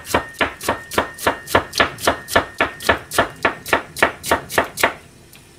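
Kitchen knife slicing celery on a plastic cutting board: an even run of quick chops, about four a second, that stops about five seconds in.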